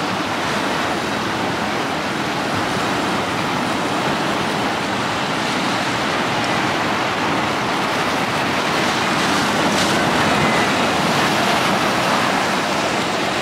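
Ocean surf washing steadily against the rocks of a jetty, a continuous even rush of breaking waves.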